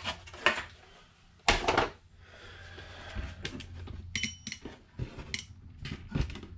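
Small screws dropped into a metal parts dish, clinking with short metallic rings, among knocks of hardware and tools handled on a wooden workbench; the loudest knock comes about a second and a half in.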